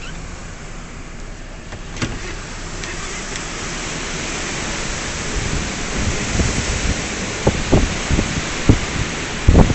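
Hurricane wind and rain hiss steadily, growing louder over the first few seconds. In the second half, irregular low thumps of gusts buffet the microphone.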